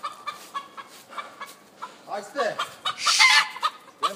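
Rooster clucking in short, repeated notes, with a louder, harsh call about three seconds in.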